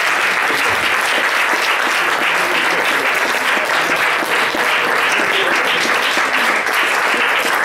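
Comedy club audience applauding steadily at the end of a stand-up set.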